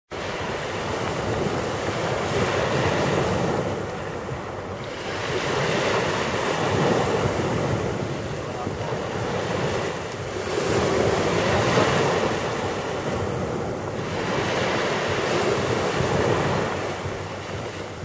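Small Mediterranean waves breaking and washing up a sand-and-pebble shore. The surf swells and ebbs about every four to five seconds.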